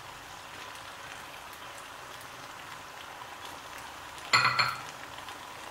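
Chicken macaroni frying in a wok, a steady soft sizzle, with one brief clink about four seconds in.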